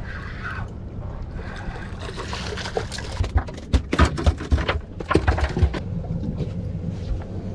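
Boat's engine idling with a steady low hum and water sloshing, with a run of sharp splashes and knocks about three to six seconds in.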